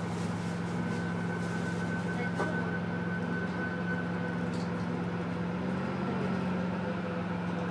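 Steady running hum of a diesel passenger train, heard on board, with a thin whine above it.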